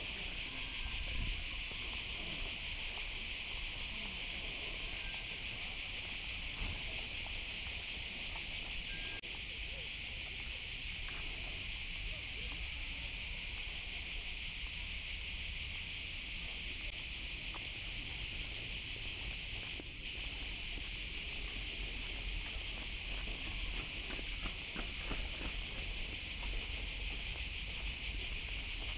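Cicadas singing in chorus, a steady high-pitched buzz that does not let up.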